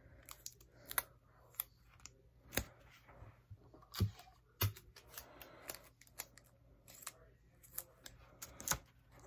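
Sticky tape being handled, pulled and rolled into loops: scattered sharp clicks and crackles.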